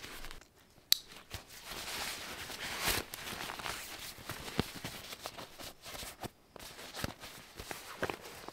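Fabric of a stuffed compression sack rustling and swishing as its top is rolled down and its lid and straps are handled, with scattered small clicks and a sharp click about a second in.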